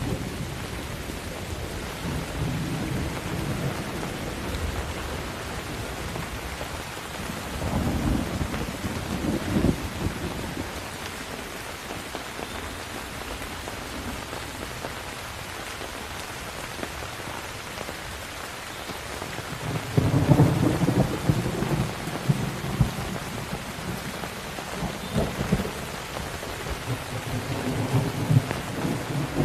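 Thunderstorm: steady heavy rain hissing, with rolls of thunder rumbling through it several times, the loudest about two-thirds of the way in.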